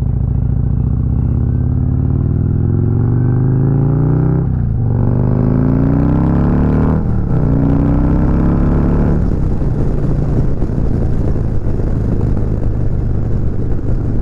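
Harley-Davidson Road King Special's Milwaukee-Eight V-twin pulling away from a stop and accelerating, its pitch climbing three times with two brief dips as it shifts up a gear about four and a half and seven seconds in. From about nine seconds in it settles to a steady cruise under rising wind noise.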